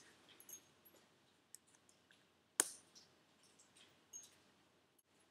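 Faint clicks and taps of small metal turbocharger parts being handled while the piston ring seal is fitted, with one sharper click about two and a half seconds in.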